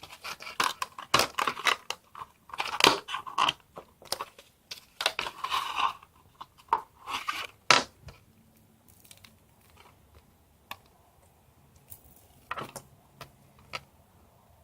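Plastic packaging crinkling and tearing as in-ear headphones are unwrapped, busy for about the first eight seconds, then only a few scattered clicks and taps of handling.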